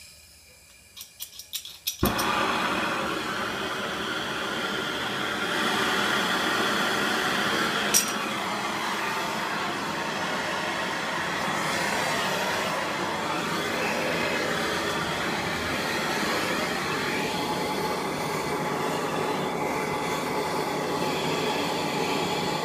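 Electric heat gun switched on about two seconds in and running steadily, blowing hot air onto the clutch hub nut to soften the Loctite 648 threadlocker that holds it. A few clicks come just before it starts.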